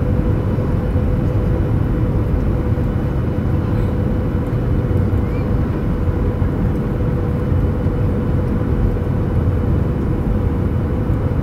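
Steady cabin noise of a jet airliner descending towards landing: engine rumble and rushing air heard from a window seat, with a steady hum running through it.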